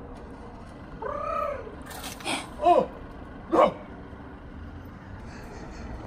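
A man's voice imitating seagull calls: a drawn-out rising-and-falling cry, then two short, loud squawks.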